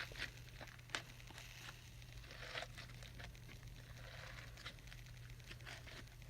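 Hands kneading sticky clear-glue slime that is still coming together with borax: faint squelches and crackles with a few sharp clicks, over a steady low hum.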